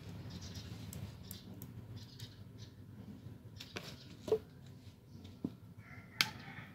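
Handling of a small brass lighter: scattered light clicks and taps of fingers and metal, with a few sharper clicks, the loudest about four seconds in and another near the end.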